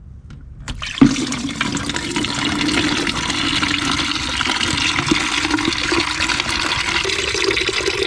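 Engine coolant pouring out of the car's radiator drain opening and splashing steadily. It starts suddenly about a second in, once the drain pin is pulled.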